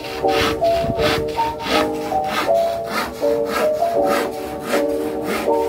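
Hand saw cutting wood in quick, even back-and-forth strokes, about three a second.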